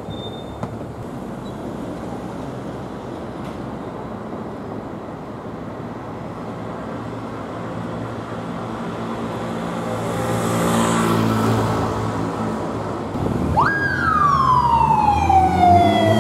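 Street traffic hum, then a police motorcycle's engine getting louder as it accelerates closer. Near the end its siren starts: a quick rise to a high pitch, then a long falling wail.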